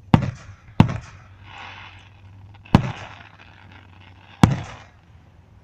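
Fireworks going off: four sharp bangs, two close together near the start and two more spaced about two seconds apart, each trailing off in an echo, with softer crackling between them.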